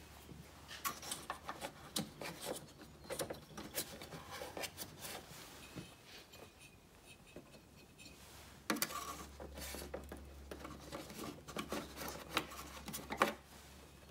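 Hands pulling and tucking a light pod's wiring harness into place around its bracket and the body panels: irregular rubbing and scraping with many small clicks of cable and fingers against plastic and painted metal.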